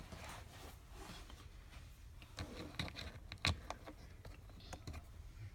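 Faint scattered clicks and light knocks of small parts being handled: screws being set back into a plastic car door handle assembly. The clicks bunch together about two and a half to three and a half seconds in.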